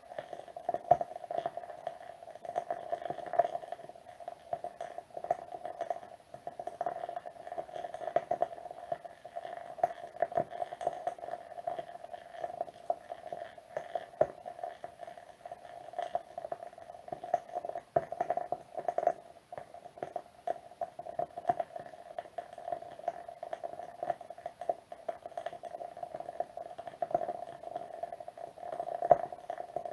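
Wood wick candle burning with a steady, gentle crackle of many small pops and ticks, a few louder sharp pops among them.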